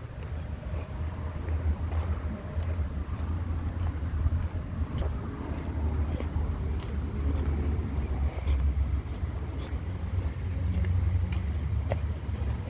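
Street ambience: a steady low rumble with a few light ticks scattered through it.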